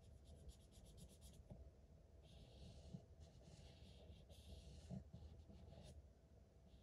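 Faint scratching of a felt-tip marker scribbling back and forth on paper as it colours in: quick short strokes for about the first second and a half, then longer, broader strokes.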